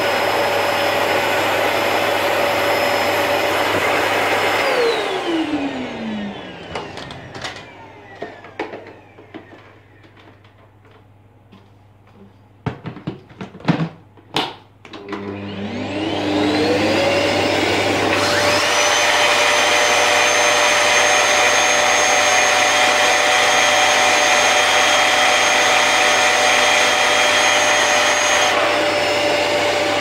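Bagless Electrolux UltraFlex canister vacuum running with its high-wattage motor. About four seconds in it is switched off and whines down. After a few seconds of plastic hose parts clattering, it is switched on again, spins up and runs steadily, now with the air drawn through the cyclone rather than bypassing it.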